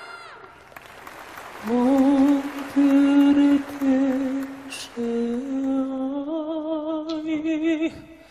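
A male singer's live voice, heard through the microphone, singing a slow phrase of several held notes after a short lull. The last long note has a vibrato, and the voice stops near the end.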